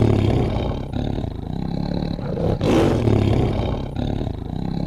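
Loud, rough, roar-like intro sound effect over a steady low rumble, surging up twice, the second time a little under three seconds in.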